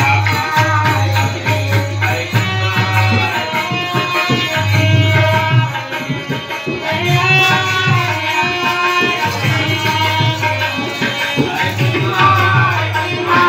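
Loud recorded Indian music played over a hired sound system: a melody over tabla-style drumming and a heavy, pulsing bass.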